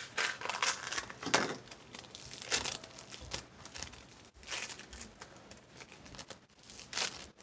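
Blue floam, slime packed with tiny foam beads, being squeezed and kneaded in the hand, crackling in short irregular bursts.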